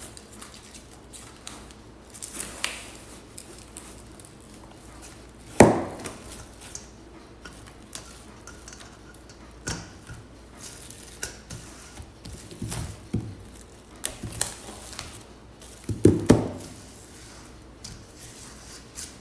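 Plastic cling wrap being handled and pressed over a stainless steel bowl, with crinkling rustles and scattered knocks. The sharpest knock comes about five and a half seconds in, and two more come close together near the end.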